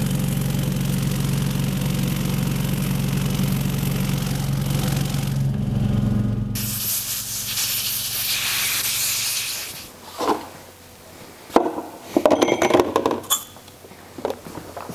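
A shop machine hums steadily for about the first six seconds. Then a compressed-air blow gun hisses for about three seconds as it blows off a cleaned oil pump plate. Near the end come a few sharp knocks and clatter of metal parts being handled.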